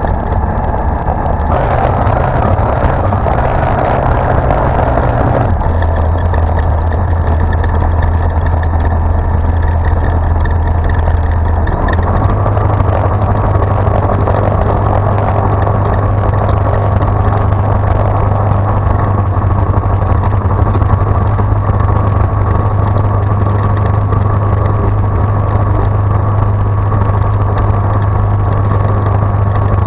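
Light aircraft's piston engine and propeller running at low, idle-range power, heard from inside the cockpit as a steady drone. Its pitch shifts a little a few times, stepping slightly higher about twelve seconds in.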